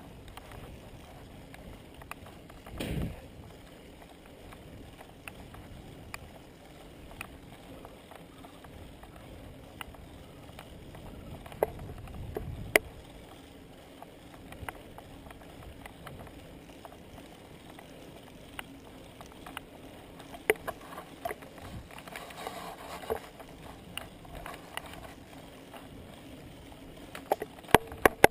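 Road bicycle rolling along an asphalt lane: steady tyre and wind noise, with scattered sharp clicks and rattles from the bike over bumps and a brief low rumble about three seconds in.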